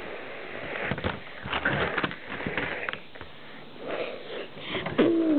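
Breathy, sniff-like noises from a person, mixed with light knocks of plastic Lego bricks as a stacked-brick machine is moved onto the baseplate. A short voiced sound comes near the end.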